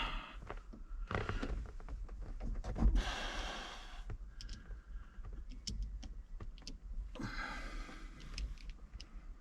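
Handling noise: three short stretches of rustling with scattered light clicks between them.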